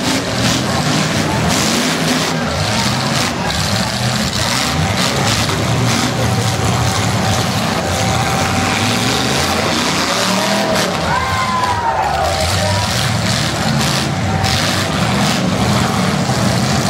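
Several demolition derby cars' engines running and revving together, with repeated knocks and crunches of metal as the cars ram one another. Crowd voices are mixed in.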